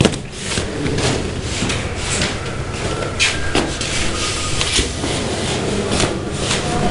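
Sheets of paper rustling and rubbing against each other in an uneven, dry crackle with many small irregular rustles.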